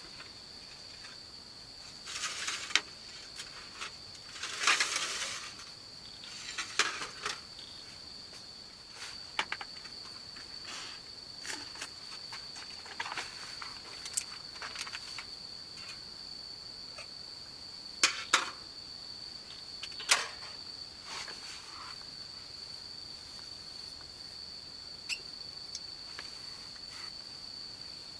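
A steady, high insect trill, typical of crickets, runs without a break. Over it come scattered sharp clicks and short bursts of rustling handling noise: a longer rustle about five seconds in, and a few loud clicks near 18 and 20 seconds.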